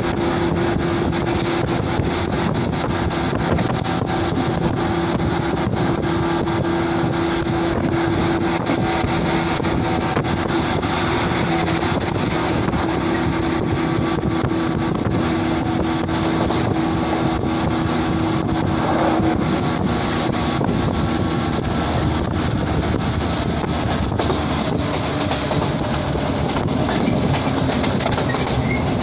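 115-series electric train running at speed, heard through an open side window: the MT54 traction motors give a loud, steady whine that drops to a lower tone near the end, over the clatter of wheels on the rail and wind buffeting the microphone.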